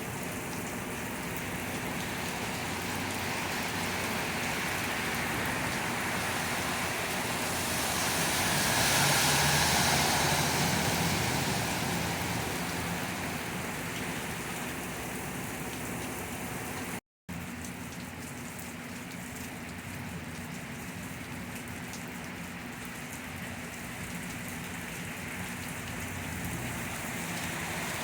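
Heavy rain pouring down steadily onto pavement and pooling water. About eight seconds in, a louder rushing swell rises for a few seconds, then fades.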